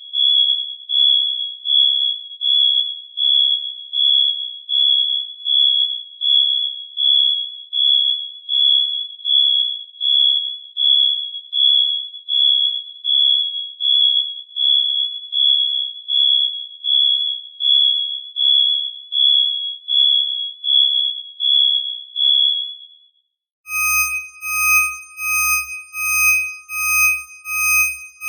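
Electronic alarm beeping: a single high-pitched tone pulsing evenly, roughly two beeps a second. Near the end it stops, and after a short gap a different electronic alarm starts beeping at about the same rate, lower and fuller in tone.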